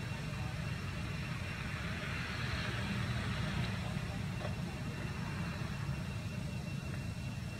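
Steady low outdoor background rumble, with a soft hiss that swells about two seconds in and fades again a couple of seconds later.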